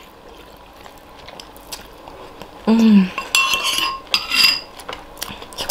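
Metal spoons clinking and scraping against a ceramic soup bowl: a run of ringing clinks about three seconds in, after a quiet start, with a short voiced sound just before them.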